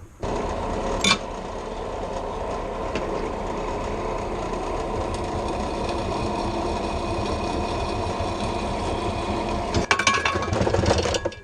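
A steady mechanical buzz for about ten seconds that stops near the end, followed by a short run of metallic knocks.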